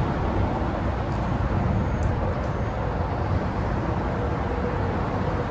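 Steady low rumble of freeway traffic crossing the I-5 bridge overhead.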